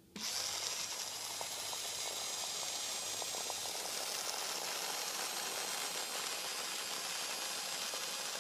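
Rotary duct-cleaning brush spinning up suddenly with a steady hiss and faint scattered ticking.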